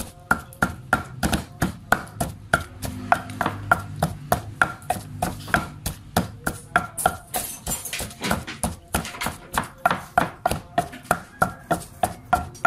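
Wooden pestle pounding chili paste in a heavy mortar: a steady beat of knocks, about three to four a second, each with a short ring from the mortar.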